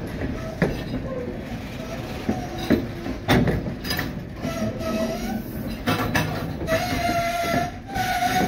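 White Pass & Yukon Route narrow-gauge passenger coaches rolling past, their wheels knocking over the rail joints with several sharp clunks, the loudest a little past the midpoint. In the second half the wheels squeal in high, held tones, each about a second long.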